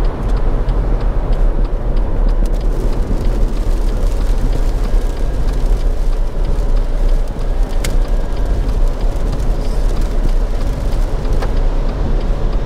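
Steady road noise inside a moving car's cabin at motorway speed: tyres on a wet road surface over a low rumble.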